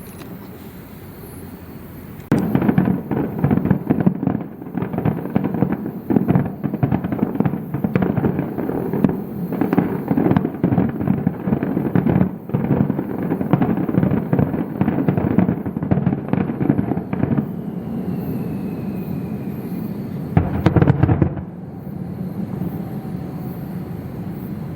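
Fireworks display. After about two seconds of low background noise, a dense barrage of shells bursts in rapid succession, the cracks and booms overlapping for about fifteen seconds. A steadier rumble follows, with one more loud cluster of bursts near the end.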